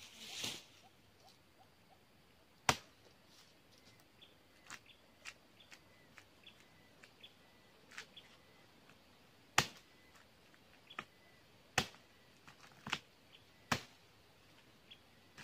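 Machete cutting the frond bases of a young oil palm: single sharp strikes at irregular intervals, several coming closer together near the end, with lighter ticks from smaller cuts in between. A short rustle at the start.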